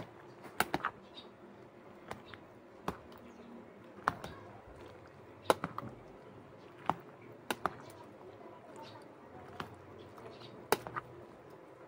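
A metal spoon stirring thick, dressed macaroni salad in a plastic container, clicking sharply against the container at irregular moments, about once a second and now and then in quick doubles or triples.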